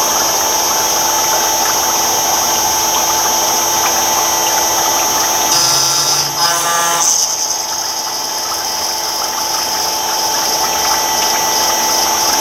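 CNC router spindle running at high speed with its bit cutting into Three Rivers stone: a steady high whine over a gritty grinding noise. The sound shifts briefly around the middle of the cut.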